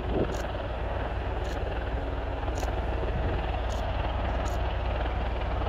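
Helicopter running steadily, a continuous deep rumble with engine noise over it, with short high clicks every second or so.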